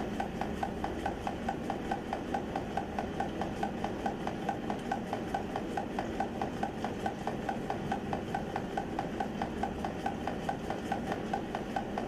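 Peristaltic pump running in reverse with the retentate valve closed, drawing permeate back through a tangential flow filtration cassette to recover the concentrated sample. A steady hum with a regular tick about four times a second.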